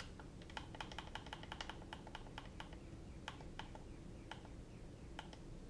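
Faint, quick, irregular clicking of a FrSky Taranis radio transmitter's buttons being pressed to step through its menus.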